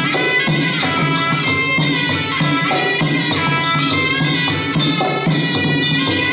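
Traditional Khmer boxing music: a wavering reed-pipe melody over a steady beat of hand drums and small cymbals.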